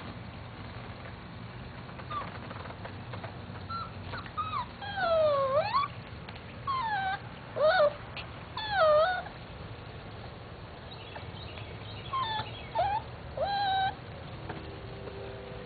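Beagle puppy whining: a string of short, high cries that slide up and down in pitch, in two bouts with a short pause between them.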